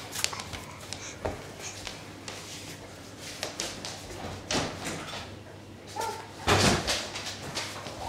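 Indoor door being opened and shut: a few light knocks, then a louder thud about six and a half seconds in.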